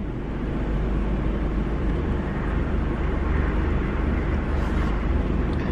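Steady cabin noise of a car idling: a low engine rumble under an even hiss.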